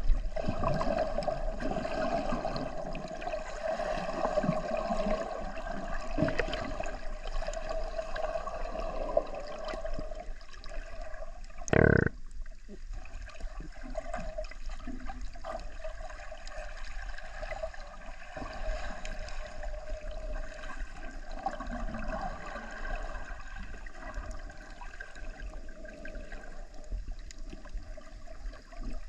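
Water moving around a submerged camera: a steady, muffled rushing and gurgling. There is one short, loud bump about twelve seconds in.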